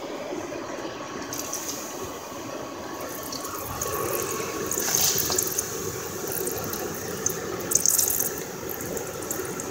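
Water splashed and poured onto hot, freshly cast aluminium in a metal baking pan, spattering and sizzling in bursts, loudest about five seconds and eight seconds in.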